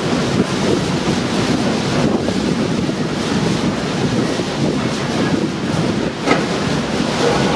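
Strong gale wind buffeting the microphone, a dense steady rush of wind noise, with one short knock near the end.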